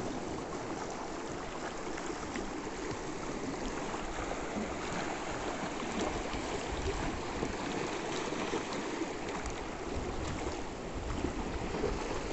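Small sea waves lapping and washing against rocks along the shoreline, a steady splashing wash.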